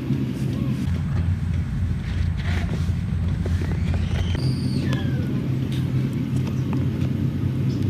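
A steady low engine drone, as from a small motor running in a field. A few short, high, gliding chirps are heard about halfway through.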